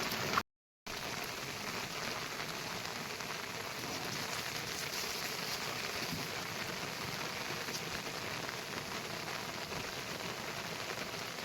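Steady monsoon rain falling, an even hiss of drops on surfaces, broken by a brief total dropout about half a second in.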